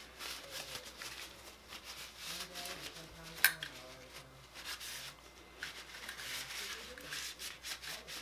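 Light scratching and rubbing of a chamber brush and paper towel scrubbing inside an AR-15 upper receiver, with scattered small clicks of the metal part being handled and one sharp metallic click about three and a half seconds in.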